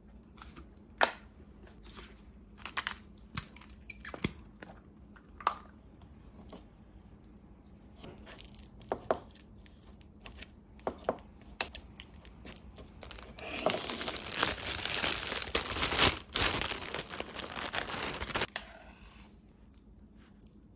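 Kitchen food-prep sounds: scattered taps and clicks of utensils and containers, then about five seconds of loud crinkling and tearing of packaging, stopping abruptly near the end.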